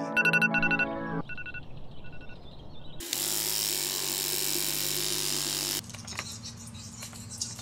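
Rapid electronic beeping for about a second, then a few sparser beeps. An electric toothbrush then buzzes steadily against the teeth for about three seconds and stops abruptly, leaving a quieter low hum.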